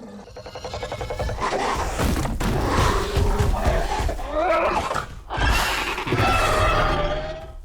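Baryonyx dinosaur roar sound effect: a long growling roar with a wavering pitch, a short break about five seconds in, then a second roar.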